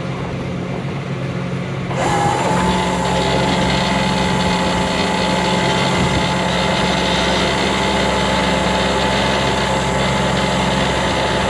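Rollback tow truck running steadily. About two seconds in it suddenly gets louder and a steady whine joins it.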